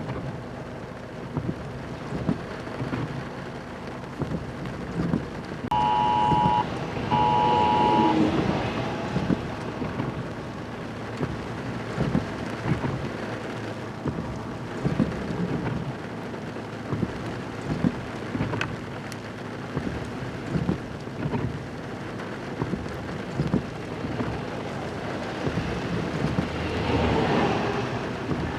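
Rain falling in a thunderstorm, with many scattered sharp drop strikes and a swell of rumbling noise near the end. About six seconds in, two short electronic beeps sound.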